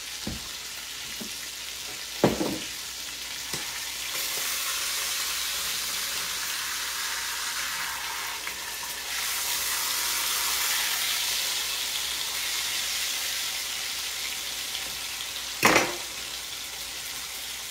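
Hot olive oil sizzling steadily in a Dutch oven while a beef chuck roast is seared, swelling louder a few seconds in and again midway. Two sharp knocks, about two seconds in and near the end.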